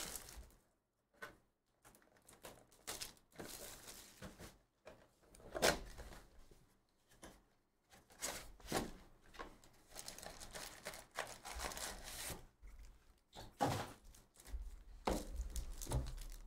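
A 2023 Topps Chrome Logofractor trading-card box being unwrapped and opened by hand: plastic shrink-wrap crinkling and tearing, then the cardboard lid and flaps opened and foil packs pulled out, in a series of short, separate rips, crinkles and light taps with brief pauses.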